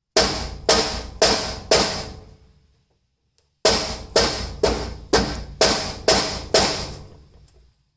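Hammer blows driving a steel rock slider into its mounting slots on a Jeep TJ frame, each strike ringing out: four blows, a pause of about two seconds, then about seven more at roughly two a second.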